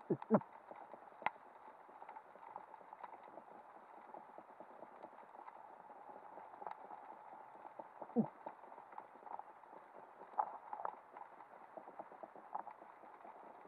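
Underwater crackling and hiss, broken by a spearfisher's throat calls made to attract fish: two short calls falling in pitch right at the start and one more about eight seconds in. Scattered sharp clicks, several close together about ten seconds in.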